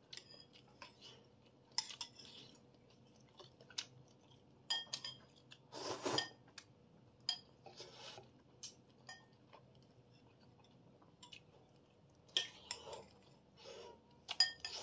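Spoon clinking and scraping against a bowl in scattered light strikes, with soft eating noises in between.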